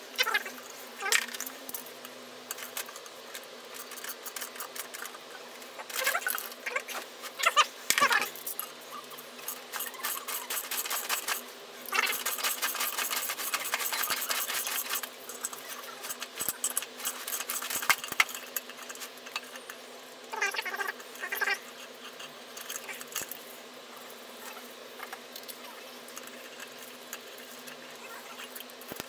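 Metal tools clinking, rattling and scraping against a gearbox casing as an internal bearing puller is fitted and worked, with a run of rapid ticking lasting about three seconds, about twelve seconds in.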